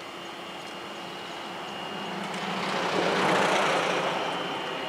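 EA-6B Prowler's twin J52 turbojets running at a distance: a steady high whine, with a rush of jet noise that swells and fades about three seconds in.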